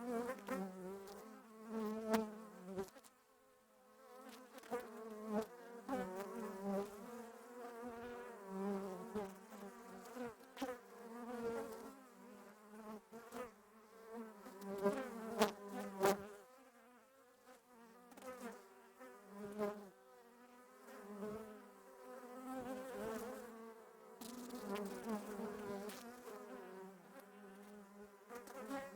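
Several bees buzzing close by, their overlapping hums wavering in pitch and swelling and fading as they fly about, with a few sharp clicks mixed in, the loudest about halfway through.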